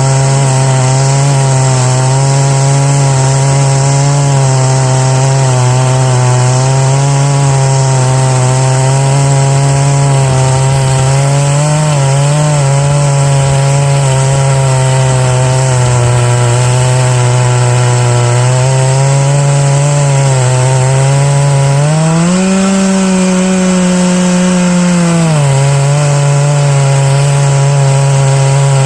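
Big-bore chainsaw at full throttle ripping a lengthwise milling cut through an oak log, its engine held down steadily under load. About three quarters of the way through, the engine speeds up for a few seconds, then drops back to its loaded pitch.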